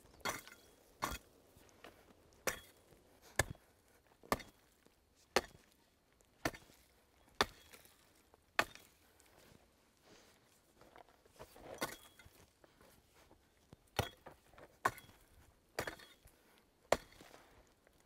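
Steel hoe blade chopping into tree roots and packed dirt. A sharp chop about once a second, around fifteen strikes, with a pause of a few seconds near the middle.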